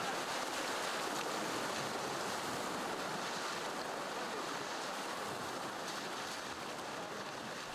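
Steady rush of river water, easing off a little towards the end.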